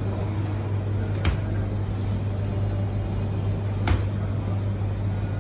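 A large butcher's knife slicing beef into thin steaks on a plastic cutting board, the blade knocking the board sharply twice, about two and a half seconds apart, over a steady low hum.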